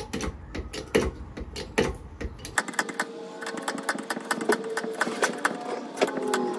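Hydraulic bottle jack being pumped by hand, its handle clicking about twice a second as it lifts a caravan axle. About two and a half seconds in the sound changes abruptly to faster, denser clicking with steady musical tones laid over it.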